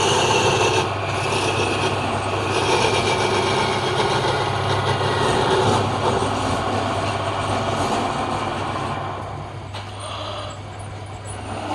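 Motor-driven woodworking machine running steadily while cutting wood, a constant low hum under a dense rasping noise. It eases off about nine seconds in.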